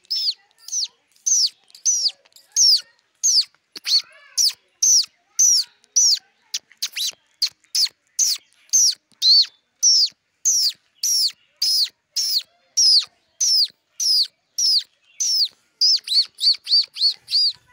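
A man imitating birdsong with his voice: a long series of high, short chirps, each rising then falling in pitch, about two a second, quickening into a fast run of chirps near the end.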